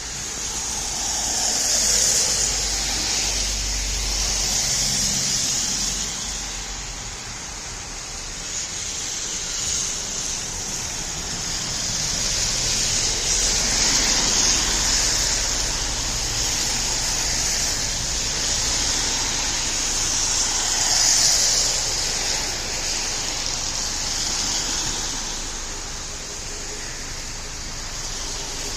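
Road traffic: a steady rush of tyre noise as vehicles pass one after another, swelling with each closer pass, some with a falling pitch as they go by.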